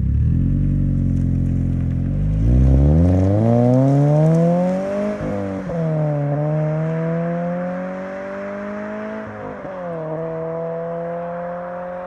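Car exhaust (Invidia Gemini R400 aftermarket exhaust) accelerating away: the engine note climbs in pitch, drops at two upshifts about five and ten seconds in, then climbs again and grows fainter as the car moves off.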